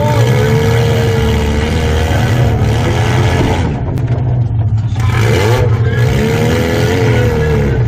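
Mini-class demolition derby car's engine revving hard, heard from inside the stripped-out cabin, its pitch rising and falling as the throttle is worked. It eases off briefly about four seconds in, then picks up again.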